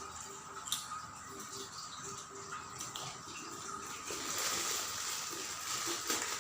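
Water running or pouring, a steady splashing hiss that grows louder about four seconds in, with a couple of light knocks earlier.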